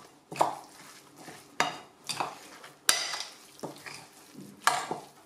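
Metal fork stirring moist minced meat in a glass bowl, with about six sharp clinks of the fork against the glass at uneven intervals between soft scraping. The meat is being mixed with its own cooking broth to keep the rissole filling moist.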